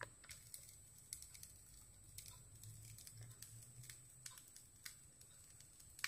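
Faint, irregular small metal clicks from a stainless steel screw-type idiyappam press (sevanazhi) being turned to squeeze rice-flour dough into strands onto an idli plate. A faint steady high-pitched whine runs underneath.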